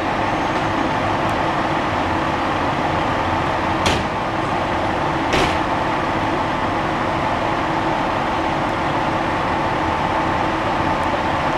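2005 E-One Cyclone tower ladder's diesel engine idling with a steady hum, parked at a scene. Two short knocks cut through it, about four and five and a half seconds in.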